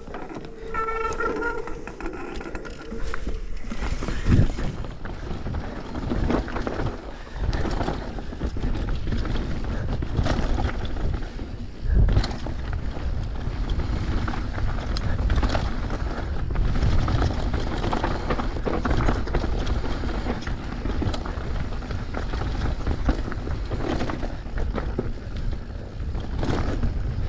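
Downhill mountain bike ridden fast over a dirt trail: a continuous rolling rush of tyres on dirt and rocks, with the bike rattling and many sharp knocks from bumps and landings, the heaviest about four and twelve seconds in.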